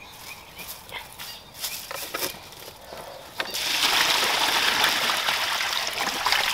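Small knocks and clicks as a plastic urn planter is handled, then, about three and a half seconds in, a steady rush of water pouring out of it as it is tipped out.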